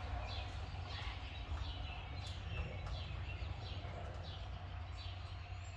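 An animal's short high-pitched calls, each falling in pitch, repeated about twice a second over a steady low rumble.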